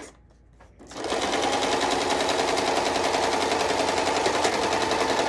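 Household electric sewing machine running a straight stitch at speed, a fast even clatter of needle strokes. It stops for under a second at the start, then runs steadily again.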